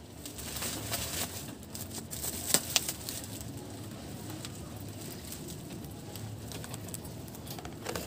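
Plastic and wire parts of a new bird cage being handled and fitted, with rustling and a few sharp clicks, the loudest pair about two and a half seconds in.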